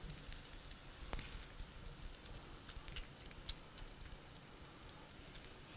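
Faint crackling sizzle from hot caramelized red onions, with scattered soft ticks and one sharper click about a second in.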